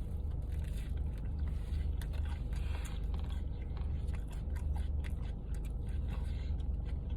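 A person chewing a mouthful of popcorn chicken po'boy sandwich with very crispy, slightly hard bread, close to the microphone, with scattered small crunches. A steady low hum runs underneath.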